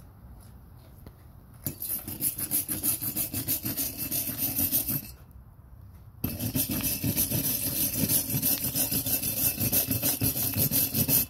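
Hand wire brush scrubbed quickly back and forth over a fresh weld bead on square steel tubing, cleaning off slag and spatter: about four scratchy strokes a second. Two bouts of brushing, the first starting about two seconds in and the second after a pause of about a second.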